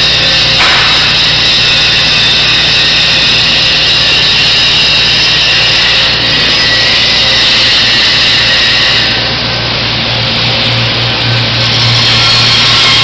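Steady din of a welding and fabrication shop: welders and power tools running, with a constant machine hum underneath.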